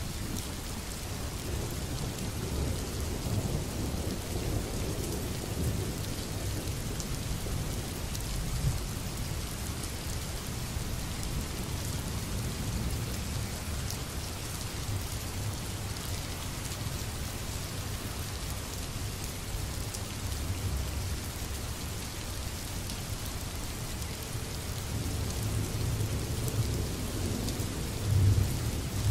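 Steady rain with low rolls of thunder. The rumble swells a few seconds in and again near the end.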